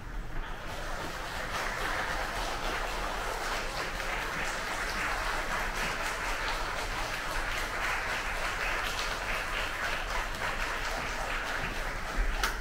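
Audience applauding in a concert hall, heard from backstage through the open stage door. The applause swells in the first couple of seconds and then holds steady, with a few louder, closer claps near the end.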